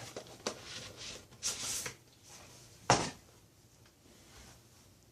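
Handling noises on a desk: a few light clicks and a short rustle, then one sharp knock about three seconds in.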